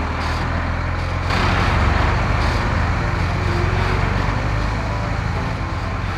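Heavy construction vehicle engine running with a steady low rumble; a louder rushing noise joins just over a second in.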